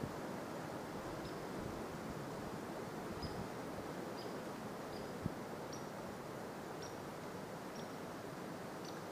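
Steady woodland background hiss, with a small bird repeating short high chip notes about once a second. A single sharp click sounds about five seconds in.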